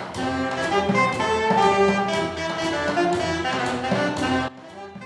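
Jazzy intro music led by brass horns, playing a moving melody until it cuts off sharply about four and a half seconds in, after which only a faint quieter sound carries on.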